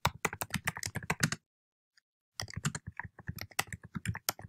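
Typing on a computer keyboard: a fast run of key clicks, a pause of about a second, then another run of typing.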